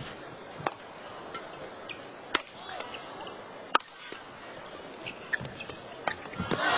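Rackets striking a shuttlecock in a badminton rally: sharp smacks about one to one and a half seconds apart, the loudest near the middle. Steady arena crowd noise runs beneath them.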